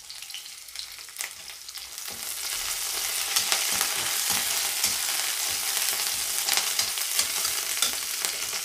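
Ginger, garlic, green chillies and curry leaves sizzling in hot oil in a kadai, stirred with a metal slotted spatula that scrapes and clicks against the pan. The sizzle grows louder about two seconds in and then holds steady.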